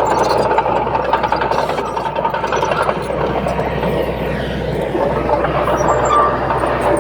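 Bulldozer running under load, a steady engine rumble with drawn-out metallic squealing, typical of its steel tracks.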